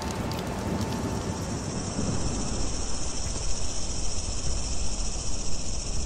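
Rain pattering on plants for about the first second and a half, then a steady, high-pitched chorus of insects over a low rumble.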